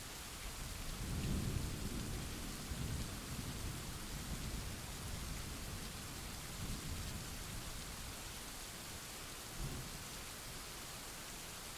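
Steady rain hissing, with a roll of thunder that builds about a second in, peaks around a second and a half, and rumbles on in swells for several seconds before fading; a short low rumble comes again near the end.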